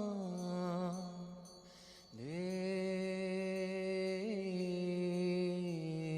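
A voice chanting in long, held notes, with a short break about two seconds in before the next note slides up and is sustained.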